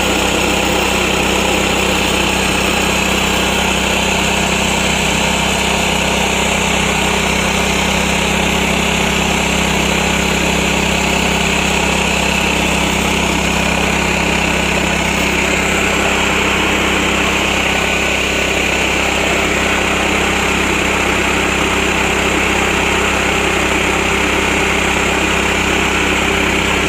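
Small engine-driven rice milling machine (Yasuka 3-in-1 mill on a 7–7.5 HP MGX 210 engine) running steadily at constant speed, with a continuous engine drone and a higher milling hiss.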